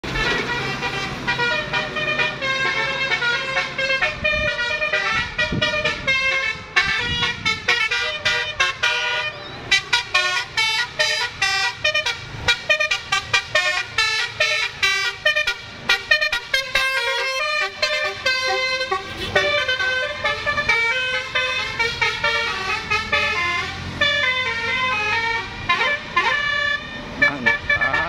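Bus 'telolet basuri' musical horn playing a fast melody of short, high notes, almost without pause.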